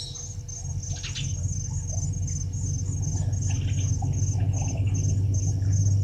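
An insect's high, pulsing trill repeats about twice a second over a steady low hum that slowly grows louder. A couple of short bird calls come in, about a second in and again past the middle.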